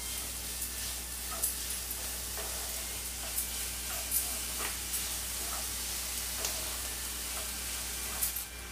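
Wooden spatula stirring grated coconut and soaked chana dal through jaggery-ghee syrup in a nonstick kadai, over a steady sizzle, with short scrapes and taps of the spatula against the pan every second or so.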